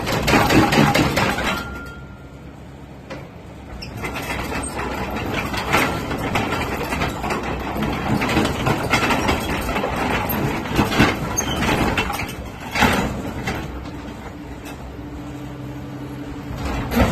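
Caterpillar 307E2 mini excavator's diesel engine running, quieter for a couple of seconds after the start and then louder again, with occasional sharp clunks as the machine is worked.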